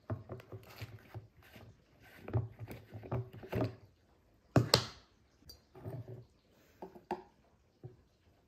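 Plastic handling clatter from a personal blender cup: twisting and scraping as its blade base is unscrewed, then irregular knocks on a wooden cutting board, with one sharp clack about halfway through.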